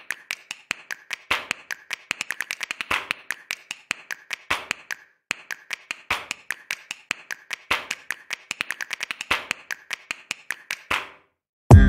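A rapid, irregular run of sharp clicks or taps, several a second, with a short break about five seconds in, stopping about a second before the end. Loud electronic music cuts in right at the end.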